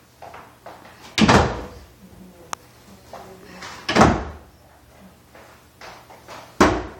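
Plastic bottle being flipped and landing, three loud thuds about two and a half seconds apart, each with a short dying tail, with faint knocks between as it is picked up again.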